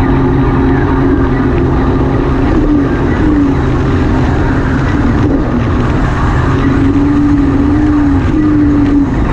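Small motorized watercraft running at speed over choppy water. The engine drones steadily, its pitch stepping up and down now and then, under a heavy rush of wind and water.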